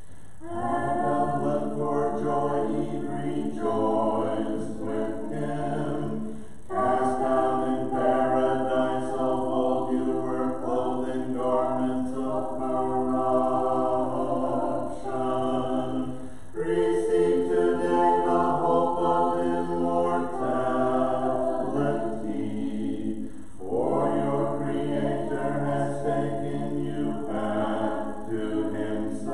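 Church choir singing an Orthodox Vespers hymn a cappella, in four long phrases with short breaks between them, over a low held bass note.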